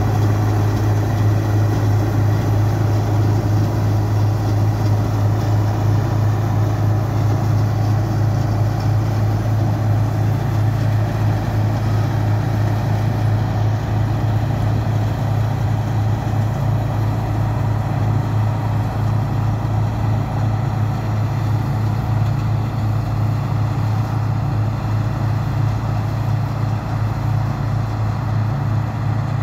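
Bizon combine harvester's diesel engine and threshing machinery running steadily under load while it harvests grain: a continuous low drone with no breaks.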